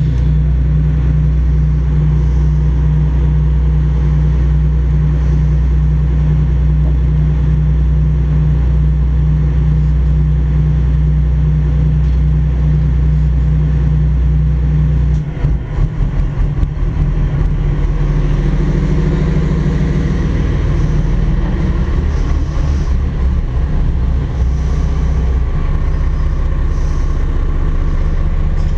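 Twin Cummins QSC 600 marine diesels, inline-six 8.3-litre engines, idling steadily while warming up. The sound wavers and flutters for a couple of seconds about halfway through, then settles back to a steady idle.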